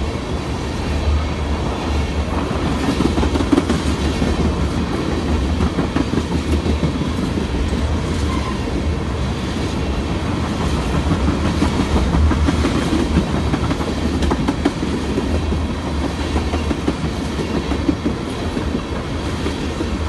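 Freight train of tank cars rolling steadily past a level crossing: a continuous low rumble with the wheels clattering over the rails.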